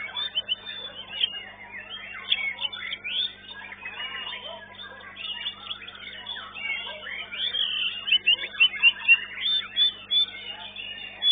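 White-rumped shama (murai batu) singing continuously: a dense, fast run of varied whistles, chirps and sliding notes with frequent loud peaks. A faint steady electrical hum lies underneath.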